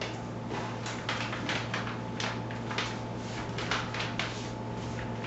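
Handling noise: an irregular quick run of rustles, scrapes and light taps as objects are moved about, over a steady low electrical hum.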